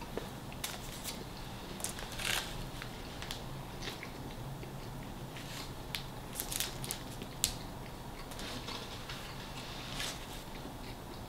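A person chewing a mouthful of a turkey sandwich close to the microphone: irregular wet mouth clicks, smacks and crunches, with a louder crunchy stretch about two seconds in and another cluster around six to seven seconds.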